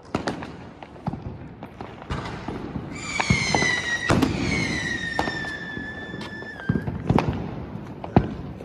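Firecrackers going off in a string of sharp cracks and pops, a few louder bangs among them. About three seconds in, a whistling firework gives one long whistle that slides slowly down in pitch for nearly four seconds before cutting off.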